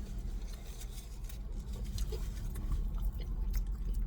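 Eating sounds: chewing on a fried chicken sandwich, with small scattered clicks and rustles, over a low steady hum.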